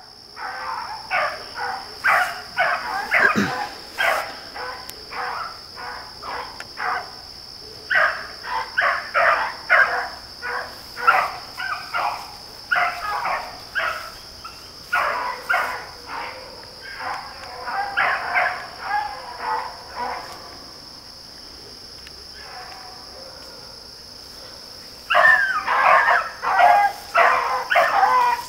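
Beagle hounds baying on a rabbit's trail: rapid runs of short, high barks with brief pauses, dying down for a few seconds about two-thirds through, then picking up loudly again near the end.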